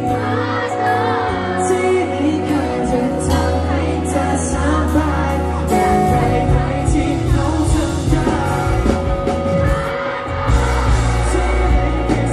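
Live band playing a pop-rock song: a male voice singing over electric guitar, bass guitar and drums with frequent cymbal hits.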